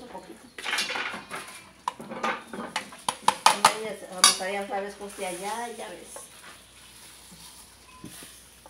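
A metal spoon clinking and scraping against an enamel bowl and a plastic blender jar as soaked dried chiles are spooned in, in a run of sharp clinks over the first four seconds or so, then quieter.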